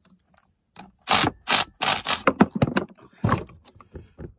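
Pliers working on the metal mounting bracket of a replacement blower motor: two short, loud scrapes about a second in, followed by a run of clicks and clanks and another scrape.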